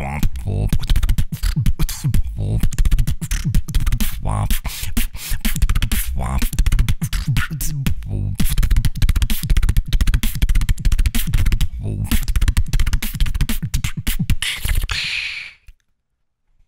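Human beatboxing into a microphone: fast drum-like kicks, snares and hi-hats made with the mouth, with heavy bass and short pitched vocal sounds mixed in. It ends with a hiss and stops abruptly near the end.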